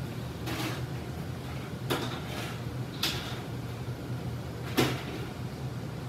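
Three sharp knocks, spread over a few seconds, with softer scraping sounds, over a steady low hum.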